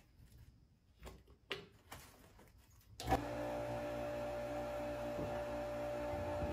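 A few light clicks of handling, then about three seconds in an electric oil transfer pump switches on and runs with a steady hum, drawing waste motor oil from the drum through its spin-on filter.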